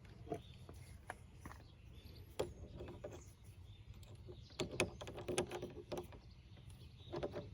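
Small metal clicks and clinks from fitting a locking washer and nut onto the back of a tubular RV compartment lock, a scatter of sharp ticks that bunch up around the middle and again near the end.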